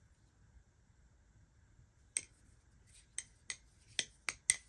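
A G10-handled balisong (butterfly knife) being flipped: six sharp clicks of the handles and blade striking as it swings open and closed, starting about two seconds in and coming quicker toward the end.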